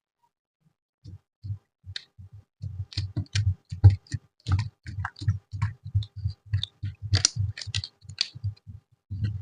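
Slime being squished and pressed by hand, giving a quick irregular run of wet pops and clicks, about three or four a second, as trapped air bursts.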